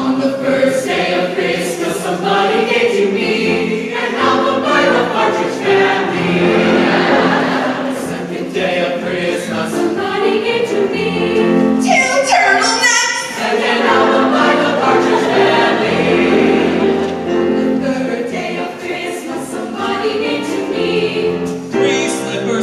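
Mixed choir of young male and female voices singing a Christmas song in harmony.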